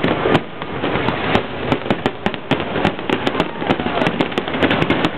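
Aerial fireworks shells bursting in rapid succession: a dense run of sharp bangs and crackles, several a second.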